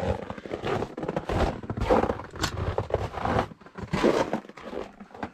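Footsteps crunching on packed snow, with irregular crackles and knocks as someone walks through a wooden doorway carrying a pan.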